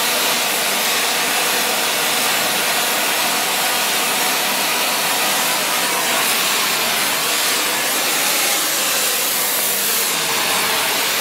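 Gas welding torch flame hissing steadily while it preheats the work for bronze brazing.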